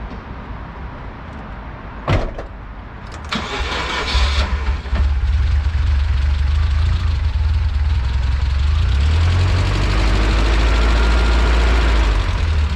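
A thump about two seconds in, then the GAZelle's ZMZ-405 petrol four-cylinder is cranked by the starter and catches, settling into a loud, steady run. The engine is being started with Dimexide and carb cleaner just poured into its cylinders for decoking.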